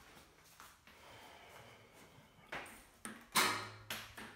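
Footsteps and a few sharp knocks on a tiled floor, the loudest about three and a half seconds in.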